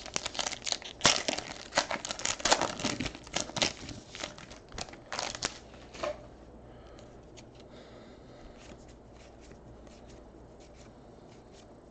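Foil wrapper of a 2018 Panini Contenders Draft football card pack being torn open and crinkled for about six seconds. After that, only faint ticks as the stack of cards is handled.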